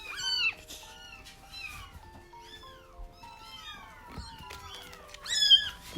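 Several week-old kittens mewing over and over in thin, high, falling cries. The loudest calls come at the start and again about five seconds in, with steady background music tones underneath.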